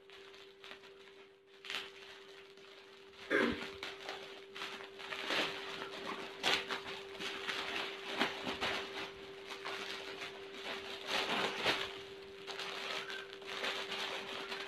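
Plastic courier mailer and the plastic-wrapped package inside it rustling and crinkling in irregular bursts as they are handled and opened, starting about three seconds in. A steady faint hum runs underneath.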